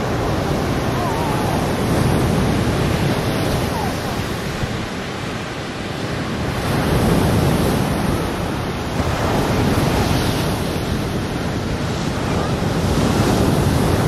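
Ocean surf breaking on a sandy beach: a continuous rushing wash that swells with each breaking wave, roughly every three to five seconds.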